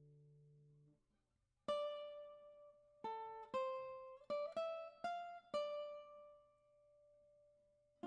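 Background early music on a plucked string instrument: a held chord dies away about a second in, then after a short pause a slow line of single plucked notes begins, the last one left ringing.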